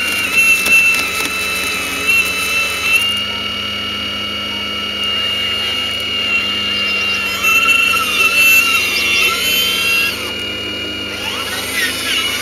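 Hydraulic pump and motors of a radio-controlled Hitachi 870 LCH scale model excavator running, a steady high whine throughout. In the second half, extra whines waver up and down in pitch as the machine works and slews.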